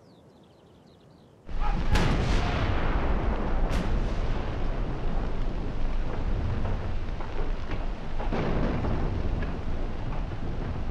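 Faint birdsong, then about a second and a half in a heavy artillery barrage breaks in suddenly: a dense, continuous rumble of gunfire with sharp cracks in its first seconds.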